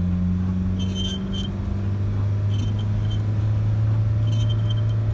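Steady vehicle engine and road drone with a short high squeak repeating three times, roughly every one and a half to two seconds. The squeak is the annoying recurring squeak in the vehicle, apparently from a rubber part rubbing.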